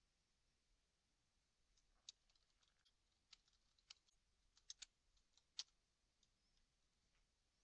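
Faint computer keyboard typing: about a dozen soft, irregular key clicks over a few seconds as a password is entered.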